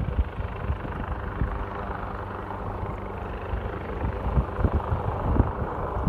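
Wind buffeting the microphone in uneven gusts over a steady rush of breeze.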